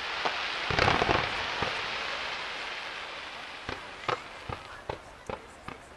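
Professional fireworks display: a heavy burst of shells about a second in, followed by a long fading crackle, then a string of sharp separate bangs about two or three a second through the second half.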